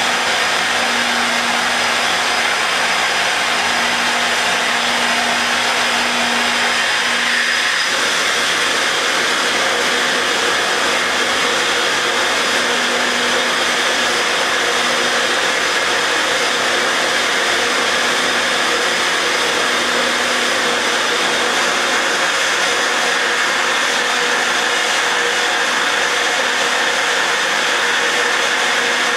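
SuperFlow SF-1020 flowbench's motors running steadily, pulling air through a cylinder head's exhaust port under test: an even, loud rush of air, with a faint low hum that comes and goes.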